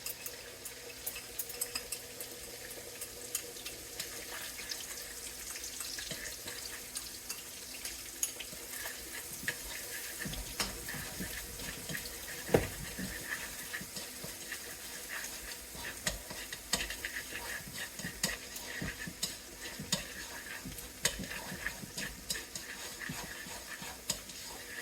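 Food frying in hot oil, a steady sizzle, with a cooking utensil stirring and clicking against the pan; one sharp knock about halfway through.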